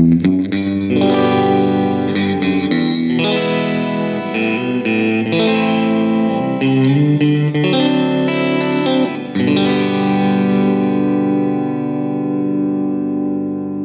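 Fender American Ultra Luxe Vintage electric guitar played through an amp with effects: a run of chords and single notes, then a chord left to ring out from about nine seconds in.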